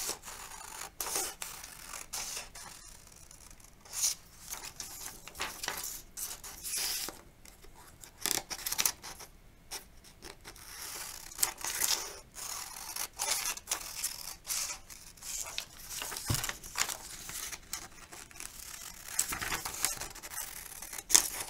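Scissors cutting through a sheet of paper: a run of irregular snips, with paper rustling between the cuts.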